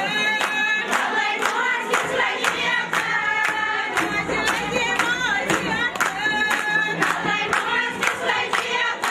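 A group of women singing a Kashmiri mehendi raat wedding song together, keeping time with steady handclaps about three a second.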